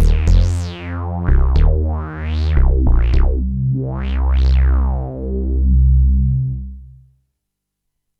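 Roland JD-990 synthesizer playing its 'JD Bass' patch: a run of deep bass notes whose resonant filter sweeps up and down on each phrase. The last note dies away about seven seconds in.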